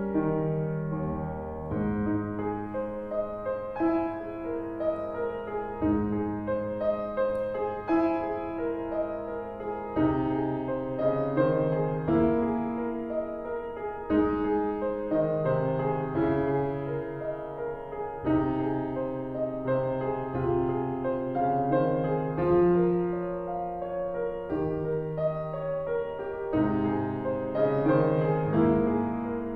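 Piano music: a melody over changing chords, played steadily without a break.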